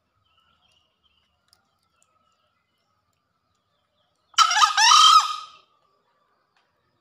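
Male green junglefowl crowing once, a short call of about a second, about four and a half seconds in.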